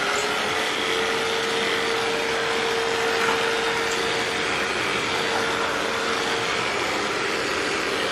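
Vacuum cleaner running steadily: an even rushing of air with a constant whine through it.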